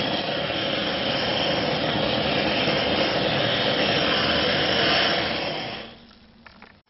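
Handheld kitchen blowtorch flame running with a steady hiss, caramelizing the sugar topping of a crème brûlée; it fades out about six seconds in, followed by a few faint clicks.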